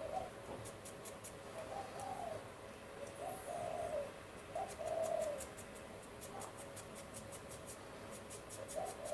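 A bird calling softly, in about five short phrases that each rise and fall, a second or more apart.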